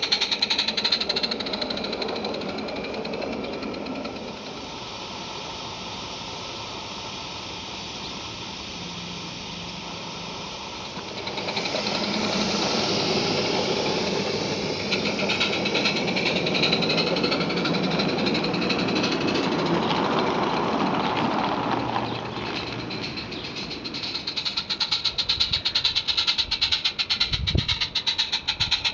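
Small live-steam garden railway locomotive running, its exhaust giving a rapid, even chuff with the rattle of its running gear. The beat is loud near the start and again in the last few seconds, with a quieter, more hissing stretch in between.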